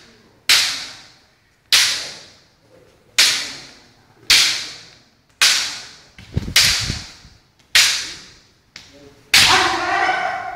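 Bamboo kendo shinai striking armour: sharp cracks about once a second, each echoing briefly. A shout follows the last strike near the end.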